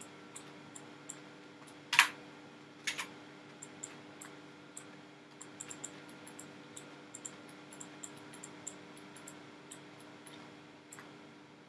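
Computer mouse and keyboard clicks: light, scattered clicks throughout, with a much louder click about two seconds in and another about a second later, over a steady low hum.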